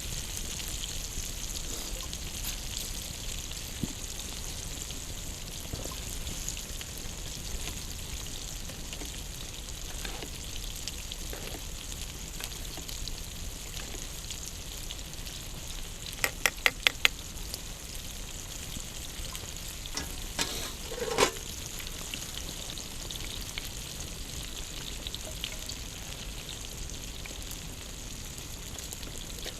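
Food sizzling and frying over an open campfire: a steady hiss with scattered crackles. About sixteen seconds in comes a quick run of about six sharp clicks, and a few knocks follow around twenty-one seconds.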